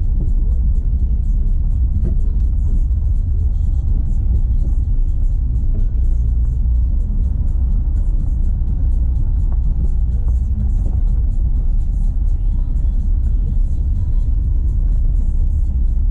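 Renault Sandero Stepway 2 driving on a dirt road, heard from inside the cabin: a steady low road rumble and tyre noise, with small irregular ticks from the rough surface.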